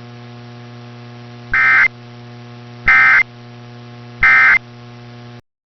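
Emergency Alert System End of Message signal: three short bursts of warbling digital data tones, about 1.4 s apart, over a steady hum on an AM radio signal received through a web SDR. The audio cuts off suddenly near the end.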